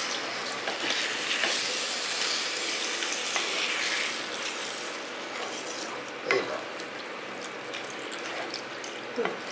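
Chicken and masala sizzling in a pan, loudest in the first few seconds and then easing off, with a couple of short knocks near the end.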